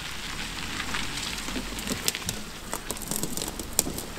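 SUV driving slowly over a gravel yard: a low engine rumble with tyres crackling on the gravel, and a few sharp pops and clicks from stones under the wheels.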